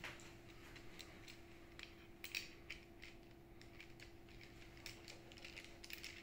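Faint scattered clicks and taps of metal and plastic spray-gun parts being handled and fitted together: an airless spray gun extension and its orange RAC V tip guard. A faint steady hum sits underneath.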